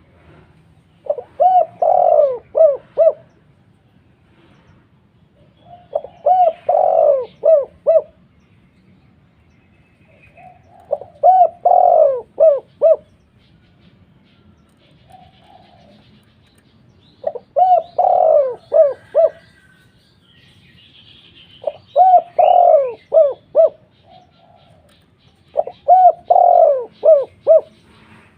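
Zebra dove (perkutut) cooing: six phrases of quick, rolling coo notes, each about two seconds long, repeated about every five seconds.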